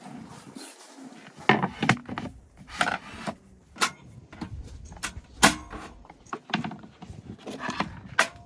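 Camping gear being handled and set down: a string of irregular knocks, clicks and light clatters, about a dozen, with small rubbing sounds between them.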